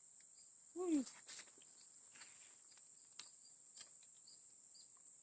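Steady high-pitched chirring of crickets or other insects, with a few faint clicks and one short falling vocal exclamation about a second in.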